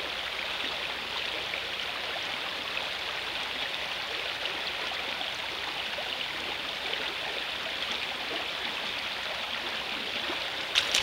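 Shallow river riffle running over stones, a steady rush of water. There are a couple of sharp knocks right at the end.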